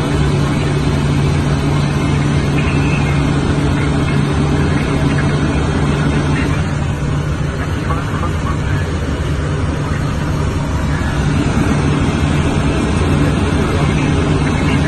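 Cockpit noise of a Cessna Citation M2 twin-turbofan business jet in cruise flight: a steady low hum under an even rush of engine and airflow noise.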